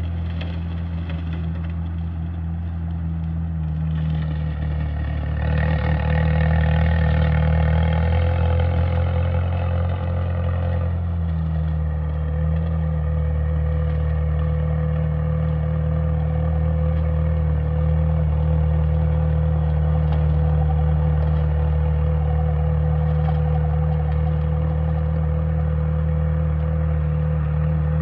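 Allis-Chalmers B tractor's four-cylinder engine running steadily while it pulls a 5-foot bush hog, with a steady whine above the engine's note. It gets louder about five seconds in and stays loud.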